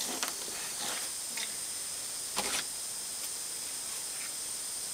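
Steady hiss of a lit gas torch left burning, with a brief faint knock about two and a half seconds in.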